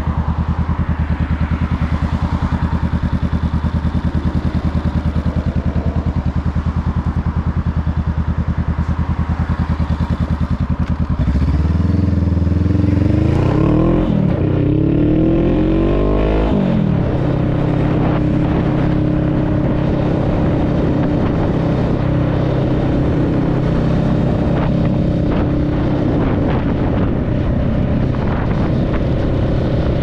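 Honda Rebel 500's parallel-twin engine through a Two Bros aftermarket exhaust, idling with a steady low pulse. About eleven seconds in it revs up and pulls away, the pitch climbing twice with a break for each upshift. It then settles into a steady cruise.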